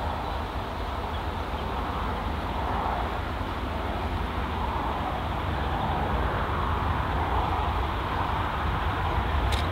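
Diesel-electric locomotive 4501, an Alco, hauling the train toward the listener. Its engine gives a steady low rumble that grows slowly louder as it approaches, with one sharp click near the end.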